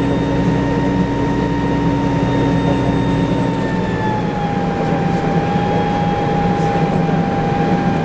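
1994 TMC RTS transit bus heard from inside while under way: the Detroit Diesel Series 50 engine drones low under a steady high whine from the Allison VR-731 automatic transmission, running with its torque-converter lock-up not engaged. About halfway through the whine dips slightly in pitch as the low engine note eases off.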